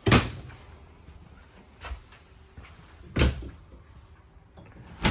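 Travel-trailer cabinet doors being opened and shut: sharp knocks at the start, about three seconds in and at the end, with a softer one about two seconds in.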